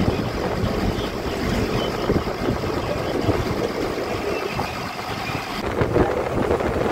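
Steady running noise of a BharatBenz bus at highway speed, heard from inside the front cabin: engine drone mixed with tyre and wind noise. The sound changes abruptly about five and a half seconds in.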